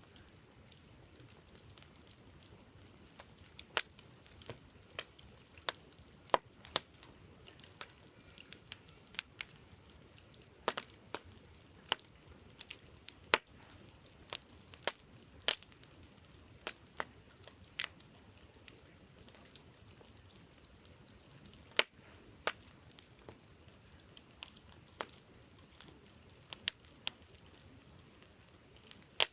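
Wood campfire crackling: irregular sharp pops and snaps, a few much louder than the rest, over a faint steady hiss.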